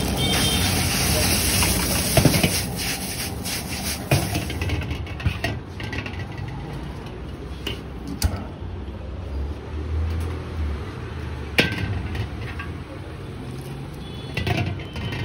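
Steel ladle knocking and scraping against a large iron wok, with sharp clanks a few seconds apart. A loud hiss from the hot wok fills the first four seconds or so, then drops away to a steady low background.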